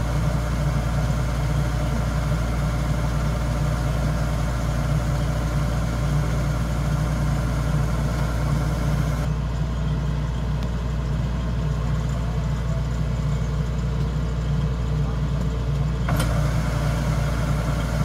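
Kubota rice combine harvester's diesel engine running steadily while parked, driving the unloading auger that pours grain into sacks. A higher hiss over the engine hum drops away for several seconds midway and then comes back.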